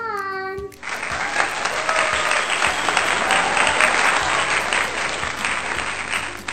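Crowd applause sound effect: dense, even clapping from a large audience. It comes in about a second in, after a brief falling child's voice, and stops abruptly near the end.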